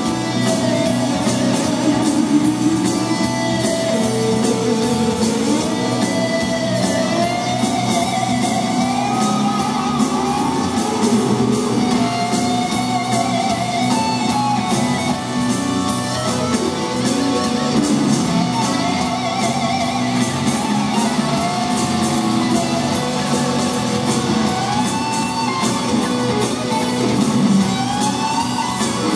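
Live hard-rock band playing in an arena: an electric guitar plays a bending lead line over keyboards, bass and drums.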